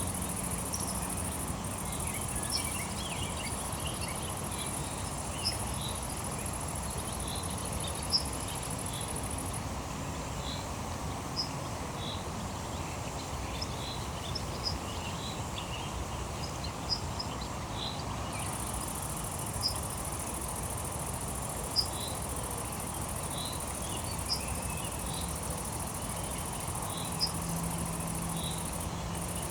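Insects trilling steadily at a high pitch; the trill drops out for several seconds in the middle. Short scattered chirps sound throughout over a low, steady background wash.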